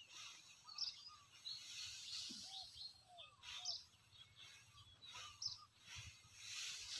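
Straw rustling in several short swishes as it is forked from a heap, with small birds chirping now and then; all of it faint.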